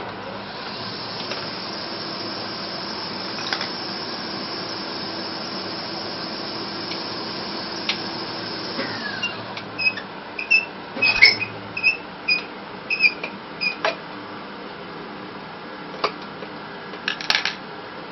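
A small motor runs steadily for about nine seconds and then winds down with a falling pitch. A run of light metallic clicks and clinks follows, with two more near the end.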